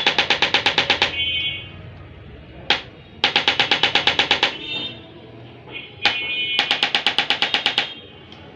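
Electric chiropractic adjusting instrument firing in three bursts of rapid clicks, about a dozen clicks a second for roughly a second each. The second and third bursts are each preceded by a single click.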